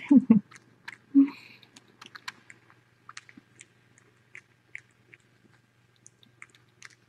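Neonatal kitten suckling on a bottle nipple: small, irregular wet clicks and smacks of its mouth working the nipple, several a second.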